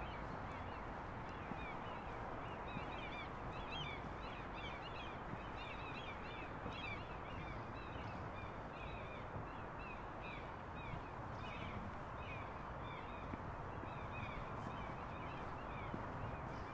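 Birds calling: a rapid run of many short chirping calls, thinning out near the end, over a steady outdoor background hum.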